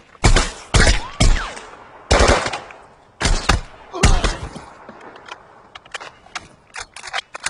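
Gunfire in a battle: loud single shots and short bursts, each with a ringing echo, coming about a second apart for the first four seconds, then lighter, quicker scattered shots toward the end.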